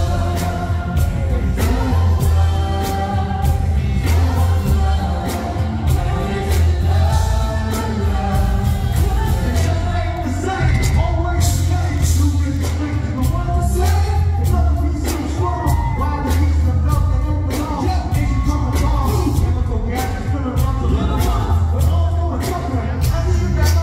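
Live hip-hop/pop music played loud through a concert PA: vocalists singing and rapping into microphones over a steady beat with heavy bass.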